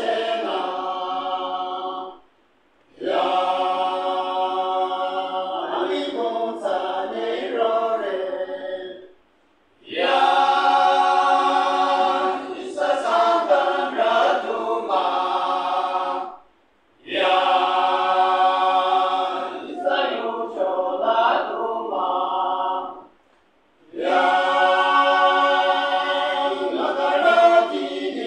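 Men's choir singing unaccompanied, in phrases broken by four short pauses for breath.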